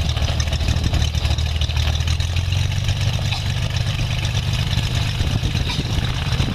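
Small high-wing propeller plane's engine and propeller droning steadily as heard inside the cabin while the plane rolls along the airstrip, with a deep low hum under a constant hiss.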